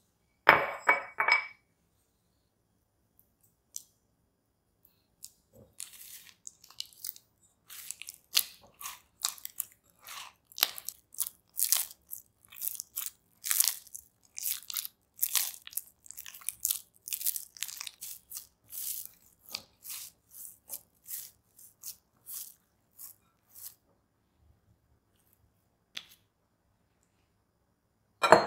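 Enriched bread dough being squeezed and kneaded by hand to work in cubes of butter: a long run of sticky, wet squelches, about two a second. It opens with a brief clinking clatter and ends with a thud as the dough ball lands on a stone countertop.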